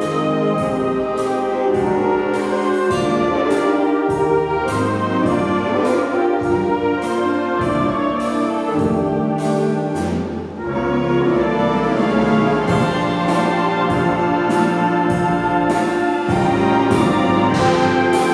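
Symphonic wind band playing live, with brass and woodwinds holding full chords over a steady beat of percussion hits about twice a second. The sound drops briefly about ten seconds in.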